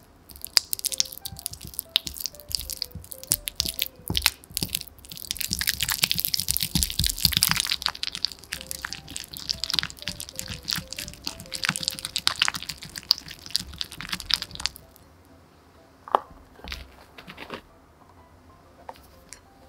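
Silicone-coated whisk beating cubed butter against the sides of a glass bowl, creaming it: rapid scraping and clicking strokes that stop about 15 seconds in. A few soft knocks follow near the end as powdered sugar is tipped in.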